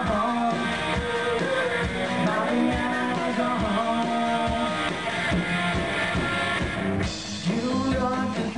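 Live rock music: electric guitar over a steady drum beat. Near the end the music briefly drops away, then comes back in with fuller held chords.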